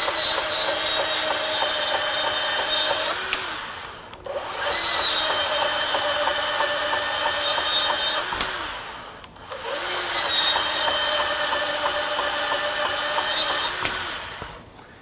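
Ridgid R8604 18V compact cordless band saw with a brushed motor cutting rebar: the motor whine and the blade grinding through the steel bar run steady in three spells of about four to five seconds, the saw stopping briefly between them, until it stops about 14 seconds in.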